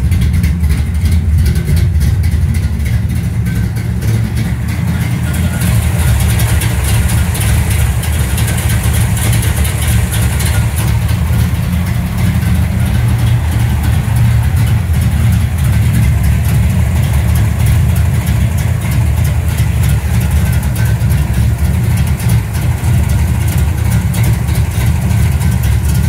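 1969 Dodge Super Bee's 440 Six Pack V8 idling steadily, a loud, even low throb.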